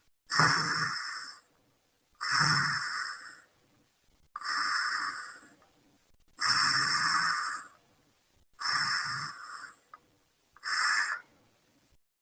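A person snoring: six snores about two seconds apart, each about a second long, the last one shorter.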